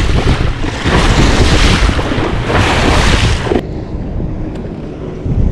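Wind buffeting the microphone over choppy lake water, with the rush of waves around the boat; the noise drops suddenly about three and a half seconds in.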